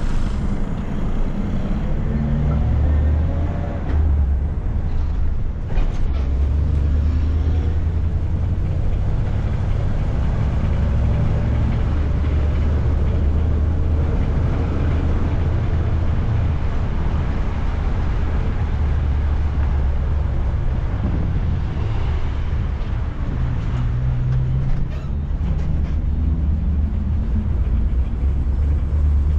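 Public-transport minibus (micro) running in city traffic: a steady low engine and road rumble, with the engine note shifting briefly a few seconds in and again near the end.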